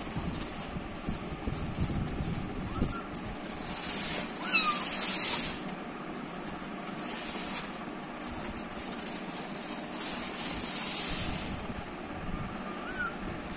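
Young kittens giving a few short, faint mews, about four in all, the clearest about four and a half seconds in. Under them runs a steady hiss that swells twice.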